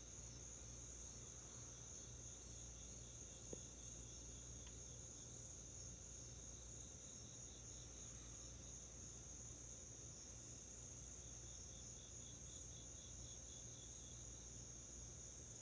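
Faint chorus of night insects: a steady high-pitched trill with a softer pulsing chirp beneath it.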